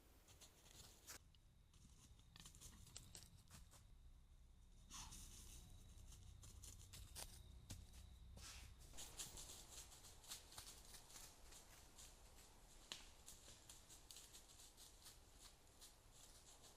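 Near silence with faint, scattered rustles and clicks.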